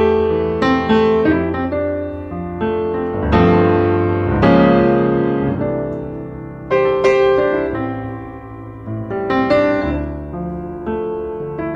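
Background piano music: a gentle tune of single notes and chords, each note struck and fading.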